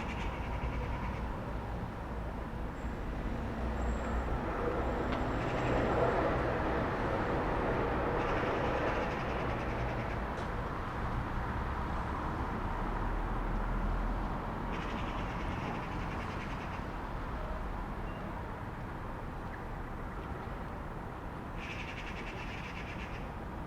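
Street ambience: a steady low traffic rumble and hum that swells to its loudest about six seconds in, with birds chirping in short bursts at the start, around fifteen seconds and again near the end.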